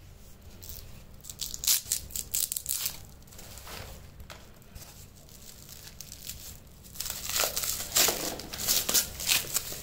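Clear plastic wrap crinkling and rustling as hands pull it around wrapped white blocks. It comes in two spells of quick crackles, about a second and a half in and again from about seven seconds, with softer handling noise between.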